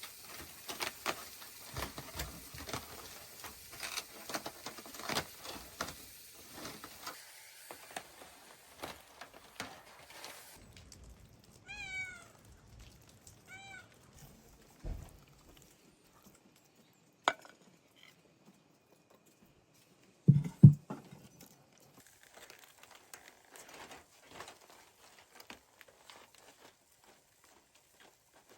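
Rustling and scattered clicks for about ten seconds, then a cat meows twice in short calls that bend in pitch. A sharp knock follows, then two heavy thumps, the loudest sounds, and quieter rustling after.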